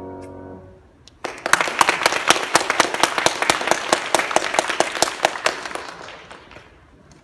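A grand piano's last chord dies away, then a small audience applauds for about five seconds, with single claps standing out, fading out near the end.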